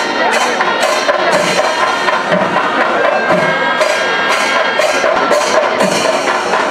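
Kerala chenda melam: chenda drums and clashing cymbals beat a steady rhythm of sharp strokes roughly every half second to a second, over a bed of held tones.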